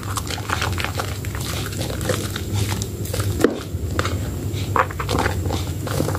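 Hands squeezing and kneading a mushy, water-soaked bar of Medicare White soap in thick lather. The result is a run of irregular wet squelches and crackling foam, with one louder squish about three and a half seconds in.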